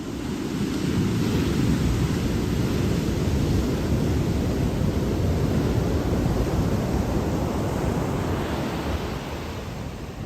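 Ocean surf rushing, with wind noise on the microphone; the rush swells about a second in and eases near the end.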